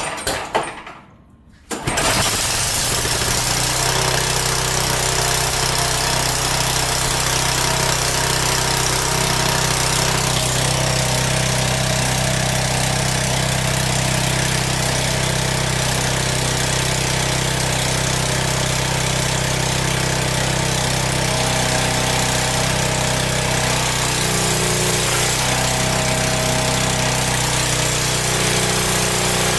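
Gas pressure washer engine pull-started: a short burst of cranking, then it catches about two seconds in and runs steadily.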